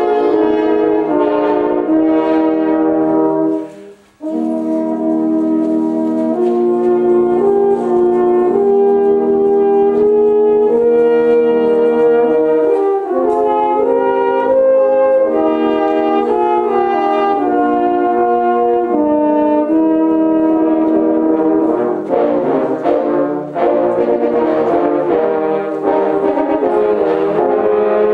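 French horn ensemble playing sustained chords under a moving melody line. It breaks off briefly about four seconds in and then comes back in.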